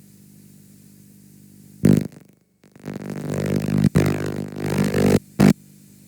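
Damaged VHS tape playback: a steady low hum, then about two seconds in, loud, distorted, buzzy bursts of garbled audio that cut in and out abruptly, with a brief dropout to silence and two short stabs near the end.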